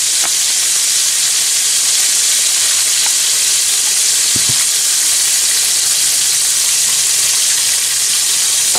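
Flour-dredged grey snapper steaks sizzling in hot frying oil, a steady loud hiss. A brief knock about halfway through as metal tongs turn the fish in the pan.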